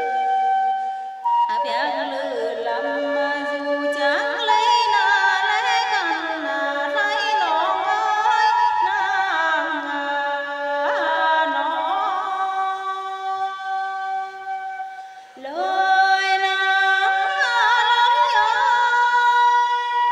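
A woman singing a nàng ơi lượn, a Tày-Nùng folk love song, in long held notes that waver and glide in pitch. There is a short break between phrases about three-quarters of the way through.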